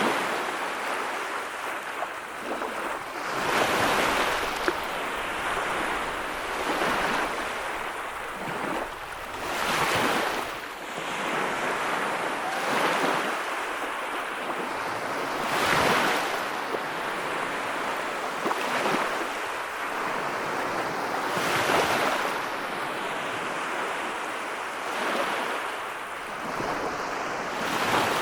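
Sea waves breaking and washing in a steady rhythm, one loud surge about every three seconds over a continuous hiss of surf.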